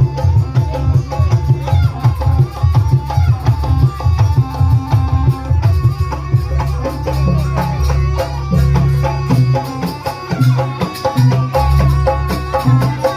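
Javanese jaranan music: fast, dense drumming with melodic instruments over it, played loud.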